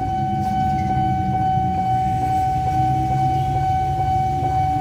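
Railway level-crossing warning alarm sounding as one steady high tone, over a low rumble of traffic or machinery.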